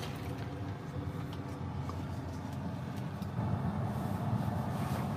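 Low, steady road and tyre rumble heard inside a car's cabin as it drives off, growing a little louder about three seconds in.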